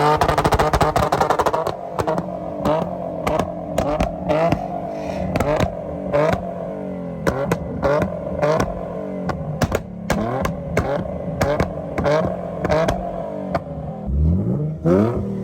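Car engine held on a two-step launch limiter at a fixed rev, with rapid, uneven exhaust pops and bangs over its steady note. It revs up again near the end.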